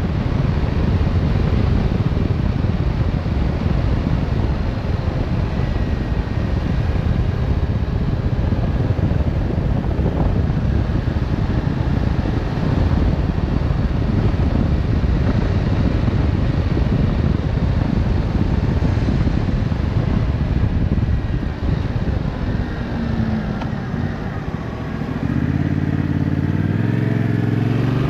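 Yamaha Tracer 7 motorcycle under way, mostly a steady rush of wind and road noise over its parallel-twin engine. Near the end the rush eases and the engine comes through clearly, rising in pitch as the bike accelerates.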